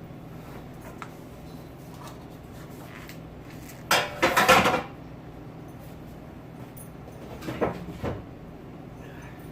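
Clatter of kitchenware being handled and set down: a loud burst about four seconds in and a smaller one near the end, over a steady low hum.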